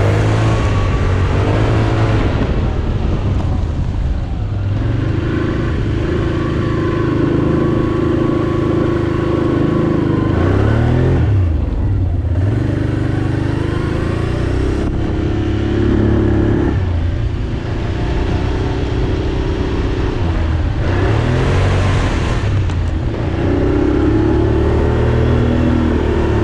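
ATV engine running under way, holding steady for stretches and revving up and easing off several times.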